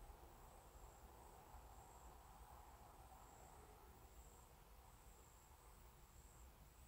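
Near silence: woodland quiet with faint insect trilling, high-pitched and pulsing in short, evenly repeated bursts.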